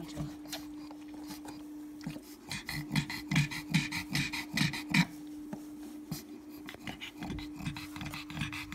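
Black pug in labour panting hard and fast, about two to three breaths a second, strongest in the first half, over a steady low hum.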